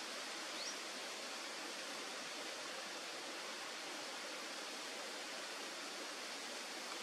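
Steady, even outdoor background hiss with no distinct events, and one brief faint high chirp about half a second in.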